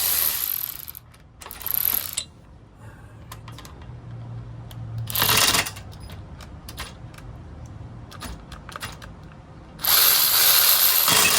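Ratcheting of a hand wrench in several bursts on a tight fastener, the longest burst near the end, with scattered metallic clicks in between.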